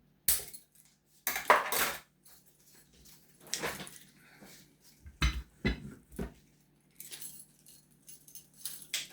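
Keys and lock parts being handled by hand: a series of metal clinks and knocks with rustling, the loudest about a second and a half in.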